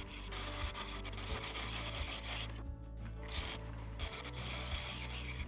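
Wood lathe running while a hand-held turning tool cuts a spinning cherry spindle blank: a steady motor hum under a continuous hissing scrape of the cut. The scrape stops for a moment about halfway through as the tool comes off the wood, then starts again.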